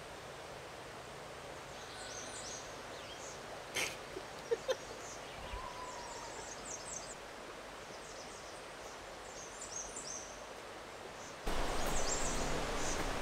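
Woodland creek ambience: small birds chirping in short, high, scattered bursts over a faint steady background, with a few sharp clicks about four seconds in. Near the end the sound suddenly turns louder, with a rushing noise and rustling under the continuing bird chirps.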